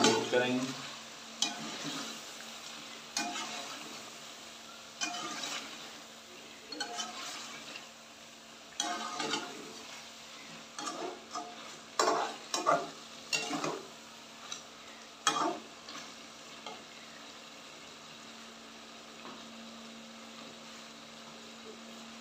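Slotted steel spatula scraping and clinking against a metal karahi pot as chicken is stir-fried, over a steady frying sizzle. The strokes come irregularly and stop about two-thirds of the way through, leaving the sizzle and a low steady hum.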